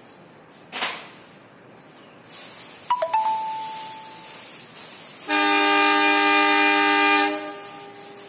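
Diesel locomotive horn sounding one steady multi-tone chord for about two seconds, a little past the middle. About two seconds before it, a few quick metallic dings ring out over a hiss.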